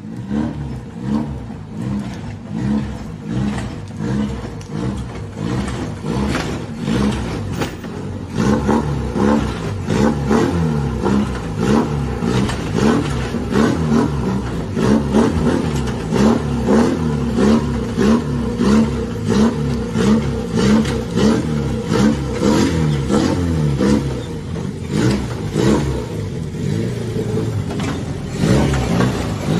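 Car engine revving up and down again and again, its pitch rising and falling in quick waves, with sharp clattering ticks running through it.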